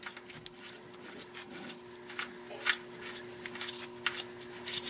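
Soft scattered taps and rubbing as a gloved hand reaches up past a car's plastic undertray toward the oil filter, with a few sharper ticks, over a steady faint hum.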